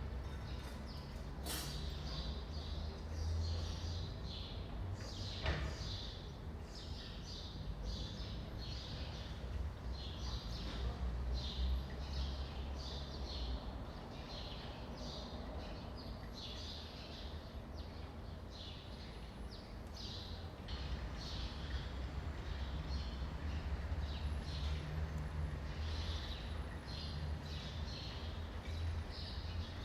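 Courtyard ambience: birds chirping over and over, with a steady low rumble of distant city traffic underneath. A couple of brief clicks sound in the first few seconds.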